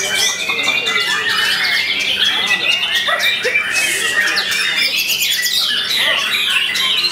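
White-rumped shama singing a rapid, varied run of loud whistles, trills and chattering notes, over a dense chorus of other songbirds singing at the same time.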